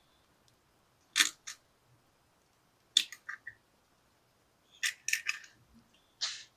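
A series of sharp clicks and clinks in small groups, typical of kitchen utensils knocking against bowls, cups or spoons: two about a second in, three around three seconds, a quick cluster near five seconds and one slightly longer near the end.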